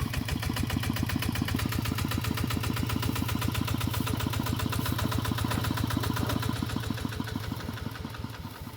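A small engine running steadily with a rapid, even beat, fading somewhat over the last second or two.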